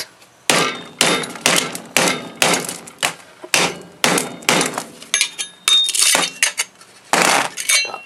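Hammer striking the steel bracket of a microwave oven's magnetron to break the magnets loose: a series of sharp metal blows, about two a second, each ringing briefly.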